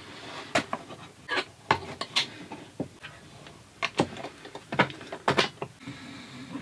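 Irregular sharp clicks and light knocks of a small plastic cooling fan and its metal wire grille being handled, fitted and screwed onto a plywood panel, the loudest clacks about four to five and a half seconds in.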